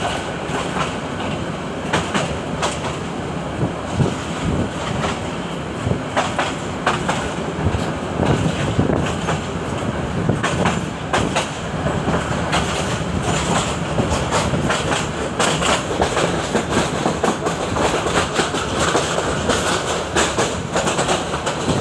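A train running, heard from aboard a carriage: a steady rumble of wheels on rail with irregular clicks and knocks as the wheels pass over rail joints.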